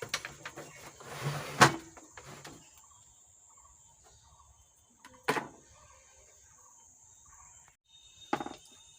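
Handling of a removed amplifier circuit board on the bench: a few clicks and a short scrape in the first two seconds, the loudest a sharp click, then two brief isolated sounds later on.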